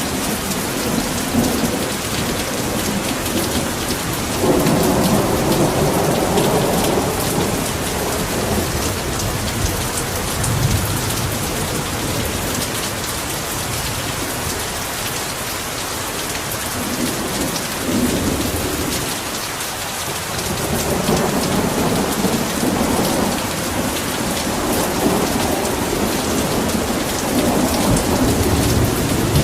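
Heavy rain falling steadily, with rumbles of thunder swelling up several times: once about four seconds in, again around the middle, and on and off through the last third.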